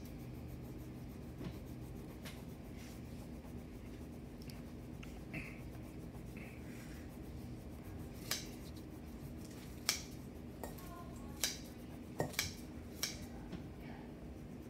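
A wax crayon rubbing back and forth on a sheet of paper as a drawing is coloured in. Several sharp clicks come in the second half, about one a second.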